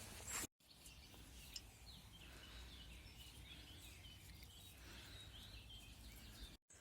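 Faint chirping of small birds, many short calls overlapping, over quiet outdoor background hum.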